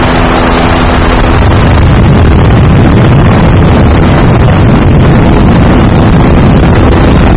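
Loud, steady engine drone with wind rushing over the microphone, heavy in the low end; a faint hum of steady tones fades out about a second and a half in.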